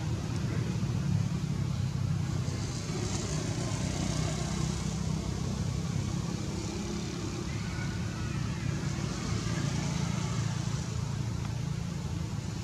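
Steady low engine-like rumble.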